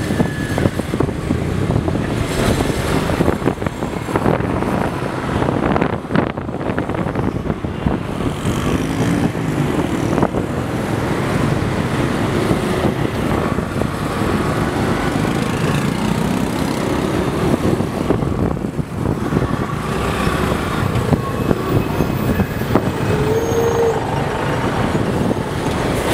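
Heavy city traffic heard from a moving motorbike taxi: a continuous mix of engine noise from motorbikes, buses and cars, with engine pitches gliding up and down as the vehicles speed up and slow.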